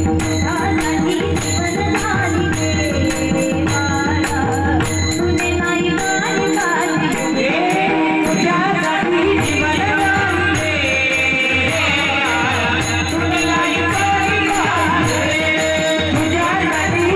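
A woman singing a Marathi kirtan song into a microphone, accompanied by a pakhawaj drum and small hand cymbals (tal) keeping a steady rhythm.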